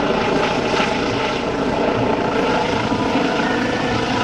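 Eurocopter EC135 air ambulance helicopter flying close overhead: a loud, steady run of rotor and turbine noise with a held hum of several tones.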